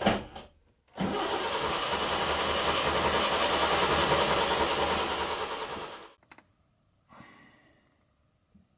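Datsun 120Y's starter motor cranking the engine for about five seconds with a fast, even rhythm, then stopping without the engine catching. The ignition is not producing a spark.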